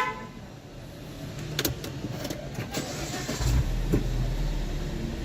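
Mini Cooper R56's four-cylinder engine starting about three and a half seconds in and settling into a steady idle, after a dash chime at the start and a few clicks.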